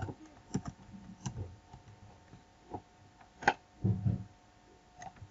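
Scattered clicks from a computer mouse and keyboard, with a few dull knocks, over a faint steady hum.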